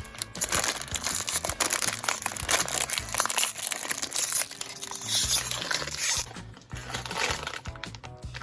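Plastic LEGO minifigure blind bag crinkling and rustling as it is handled and opened, over background music with a bass line.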